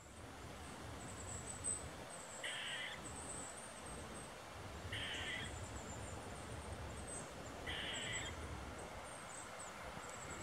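Eastern gray squirrel barking its alert call: three short barks, about two and a half seconds apart, the warning it gives on spotting an intruder.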